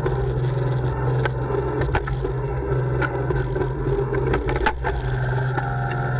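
Kubota L3901 compact tractor's three-cylinder diesel running steadily under load while its backhoe works a small tree out of the ground, with repeated sharp cracks and scraping of wood and roots, the loudest crack about three-quarters of the way through.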